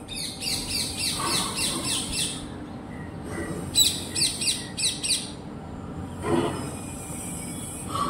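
Parrots screeching: a fast run of shrill, falling calls, about four a second for two seconds, then a second shorter run a couple of seconds later.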